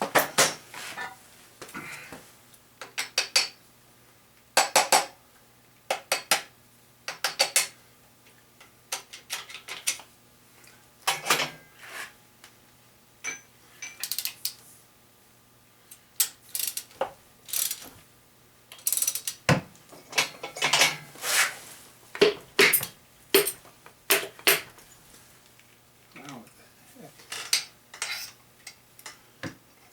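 Irregular metal clinks and clanks of wrenches, bolts and loosened main bearing caps being handled on a 1977 350 V8 short block during crankshaft removal.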